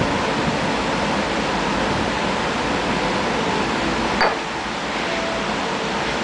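Steady rushing roar of the glass furnace, with one short, sharp clink about four seconds in.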